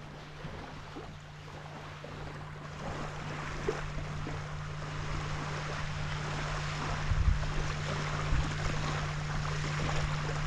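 Waves washing on a beach, a steady noise that slowly grows louder, over a constant low hum, with a few dull low thumps about two-thirds of the way in and near the end.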